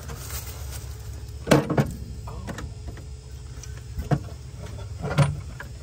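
A steady low hum with several short, sharp knocks over it, the loudest a close pair about a second and a half in.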